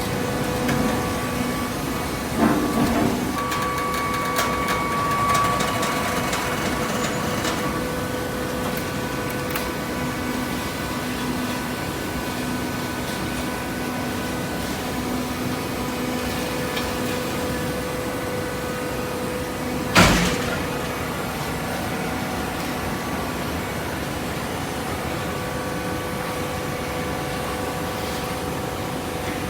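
Hydraulic baling press running with a steady machine hum, with scattered clicks early on and one loud clank about two-thirds of the way through.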